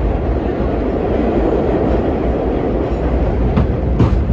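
Subway train running steadily on the rails, a continuous rumble, with a couple of sharp clacks near the end.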